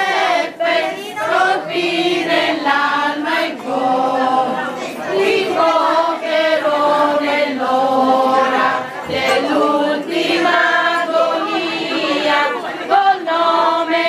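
A group of voices singing a devotional song to St Joseph together, unaccompanied, in slow held notes.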